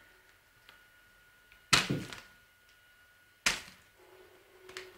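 Two sharp knocks about a second and a half apart, the first with a short crackling tail, as a cat swats at a hanging bag.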